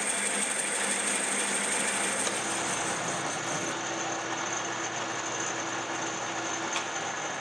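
Metal lathe running steadily with the tool turning the part. The sound shifts slightly about two seconds in, where a faint steady hum joins, and there is a brief tick near the end.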